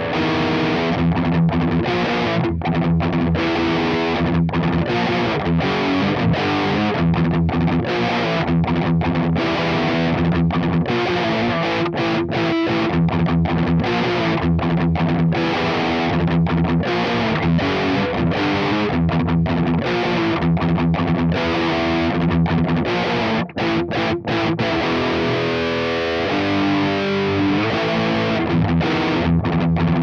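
Ibanez J-Custom RG8570 electric guitar played through a high-gain Diezel VH4 amplifier and a Mesa Boogie 4x12 cabinet with Celestion Vintage 30 speakers: continuous distorted riffing, with two brief breaks about three-quarters of the way through.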